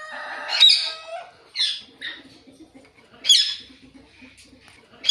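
Alexandrine and ringneck parakeets calling: a harsh, rasping call at the start, then several loud, sharp squawks spaced a second or more apart.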